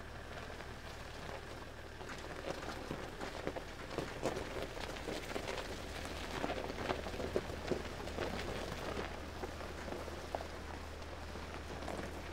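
Gravel crunching and crackling under the tyres of a towed 1956 Willys Jeep CJ-5 rolling slowly past, thickening about two seconds in. One wheel is locked up and drags through the gravel. A low steady hum runs underneath.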